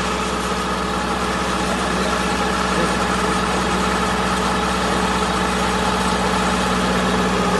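Wheat-straw baling machine running steadily: an even, unbroken engine-like hum with no strokes or changes.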